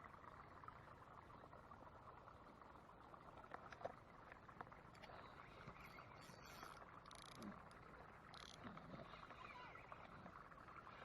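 Near silence: faint, steady outdoor ambience, with a few brief, faint hissing sounds about six to eight and a half seconds in.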